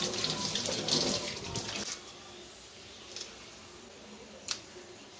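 Water running from a tap and splashing as fish is washed, stopping about two seconds in. Then a couple of sharp snips from kitchen scissors cutting the fish, the clearer one near the end.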